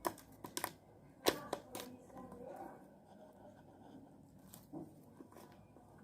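Slime being handled and pulled by hand, giving a few sharp sticky clicks and pops in the first two seconds, the loudest at about a second in, then only faint handling sounds.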